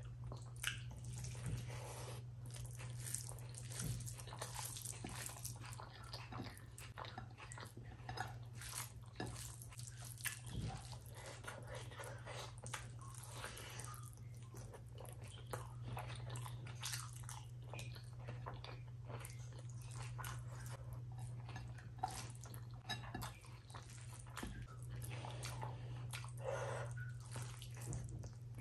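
A person eating rice mixed with mashed potato by hand: wet squishing of the food and chewing with lip smacks, a dense irregular run of small clicks. A steady low hum sits underneath.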